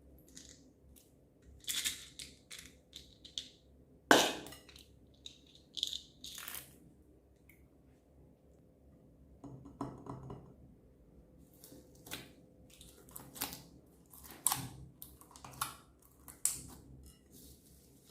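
Slime being mixed and kneaded by hand, giving irregular sticky clicks, crackles and pops, the sharpest about four seconds in.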